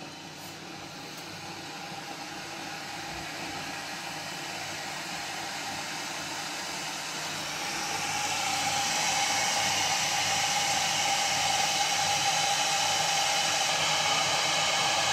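Electric Turkish coffee pot heating coffee toward the boil: a steady hiss with a faint whine, growing louder as the coffee heats and foams, most sharply about eight seconds in.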